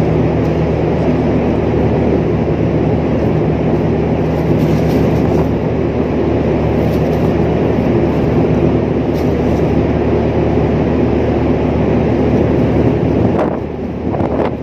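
Steady low drone of a large ship's engine machinery, a constant hum with wind noise rushing over it, easing off slightly near the end.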